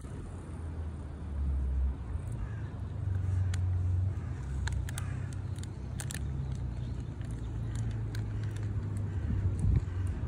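Low, steady rumble of a nearby vehicle engine, swelling slightly now and then, with scattered faint clicks over it.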